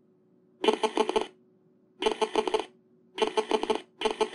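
Telephone bell ringing in four short rings, each a rapid rattle of strikes about half a second long, signalling an incoming call.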